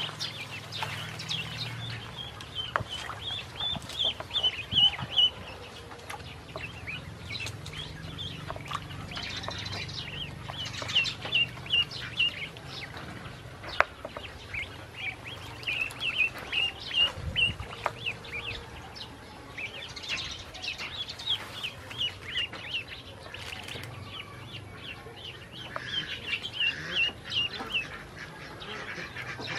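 A group of ducklings peeping in quick runs of short, high calls, with small splashes and clicks as they paddle and dabble among floating leaves in a basin of water.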